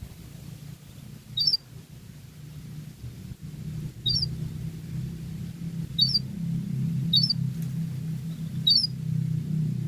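Domestic canary giving five short, sharp chirps, spaced one to three seconds apart, over a steady low hum.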